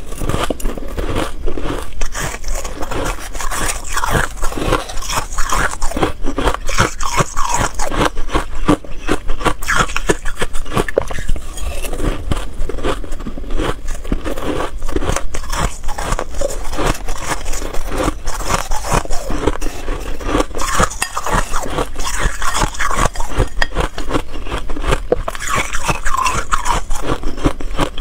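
Close-miked crunching and chewing of mouthfuls of freezer frost, a dense run of crisp, irregular crackles that goes on without a break.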